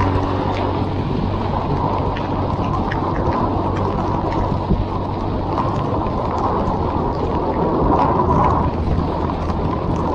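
Heavy rain and wind noise on a riding motorcyclist's microphone, with a steady low engine hum beneath and scattered sharp taps of raindrops hitting close to the mic.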